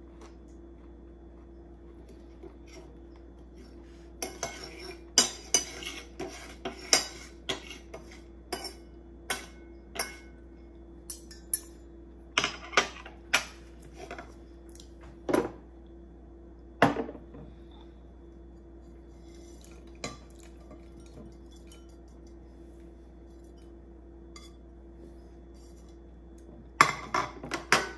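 Metal fork and knife clinking and scraping on a ceramic plate: a long run of sharp separate taps and clicks, then a few scattered ones, and a quick cluster of clinks near the end, over a faint steady hum.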